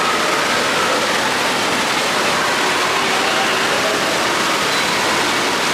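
Indoor water park ambience: a steady rush of running and splashing water, with faint voices of a crowd in the background.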